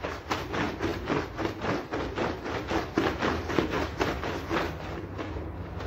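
Hand scrub brush scrubbing a wet, foamy rug back and forth, a wet bristly swish at about four or five strokes a second, a little lighter near the end.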